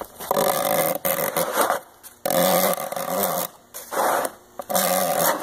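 Steel dividers' point scratching a circle into the plastic bottom of a 5-gallon bucket: a run of rasping, squeaky strokes, each a second or so long, with short breaks between them.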